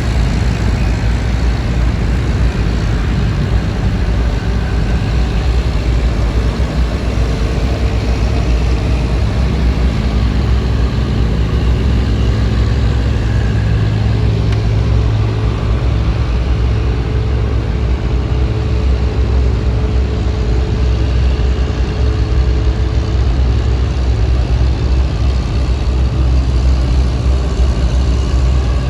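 Fishing boat's diesel engine running steadily with a deep hum.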